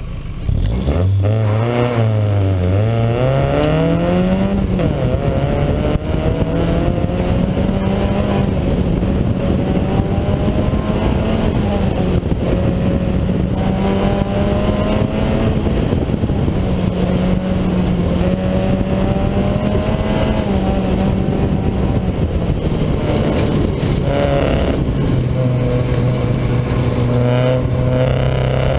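1994 Mazda Miata's 1.8-litre four-cylinder engine pulling hard about half a second in. It revs up steeply, drops with a gear change and climbs again, then runs on with revs rising and falling and easing lower near the end. The engine has a misfire, which the owner puts down to the fuel rail.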